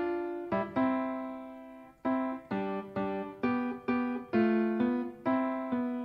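Background music: a keyboard playing a melody of single struck notes, each fading away, at about two notes a second.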